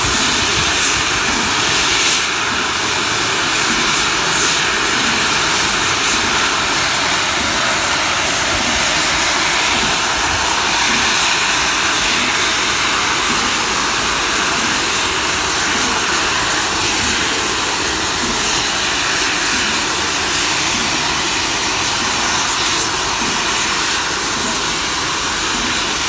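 LMS Royal Scot class steam locomotive No. 46100, standing and blowing off steam in a steady loud hiss.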